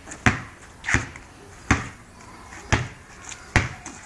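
Basketball dribbled on pavement: five sharp bounces, roughly a second apart.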